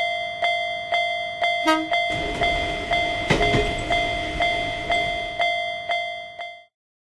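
Japanese railroad crossing warning bell ringing about twice a second. A short train horn toot comes about 1.7 s in, then the low rumble of a train passing the crossing. Everything cuts off suddenly near the end.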